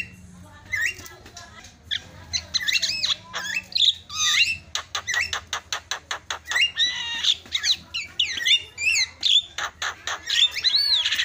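Javan myna (jalak kebo) in full song: a varied, chattering run of rising and falling whistles, with a fast series of clicking notes in the middle.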